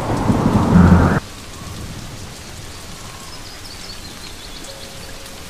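Thunder rumbling, loud and deep, stopping abruptly about a second in, then a steady hiss of rain falling on dry grass.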